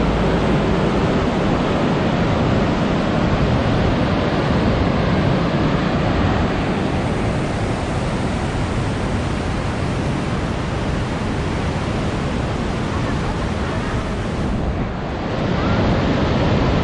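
Whitewater rapids of the Jinsha River rushing over and around large boulders, a loud steady rush of water. It dips briefly about fifteen seconds in, then comes back up.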